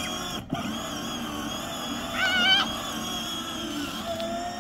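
Dog giving one short, wavering, high whine about two seconds in while tugging on a rope toy, over a steady faint hum.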